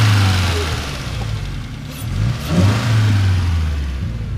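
Naturally aspirated Subaru Impreza's flat-four engine, fitted with a home-built 2.25-inch exhaust with a resonator and MagnaFlow muffler, being revved. It is held high for about a second, drops back, then is revved again about two seconds in and held before settling toward idle.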